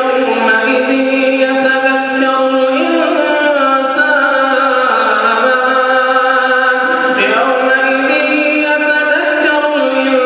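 A man's voice reciting the Quran in melodic tajweed style, drawing out long held notes that step and glide between pitches.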